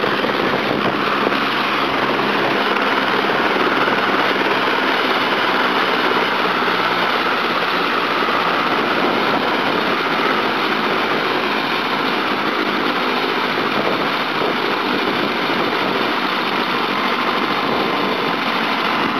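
Eurocopter AS350 B2 helicopter running on the ground with its main rotor turning: a steady, loud turbine whine and rotor noise.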